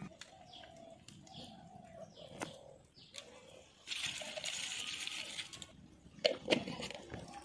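A bird cooing a few short times, then a hissing rustle for about two seconds and two sharp knocks near the end.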